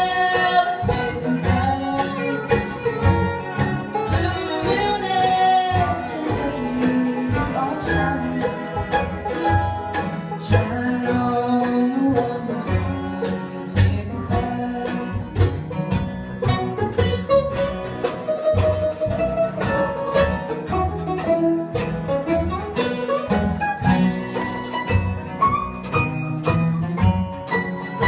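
Bluegrass band playing live: fiddles leading the melody over banjo, mandolin, acoustic guitar and upright bass keeping a steady beat.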